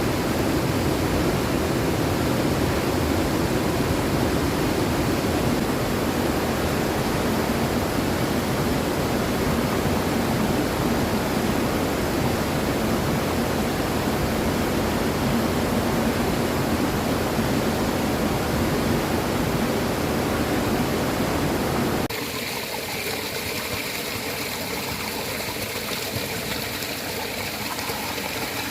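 Steady rushing of falling water from a waterfall. About 22 seconds in it cuts suddenly to a quieter, lighter flow of water, like a stream.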